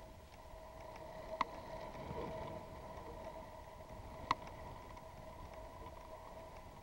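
Steady machine hum with a faint whine, and two sharp knocks about three seconds apart.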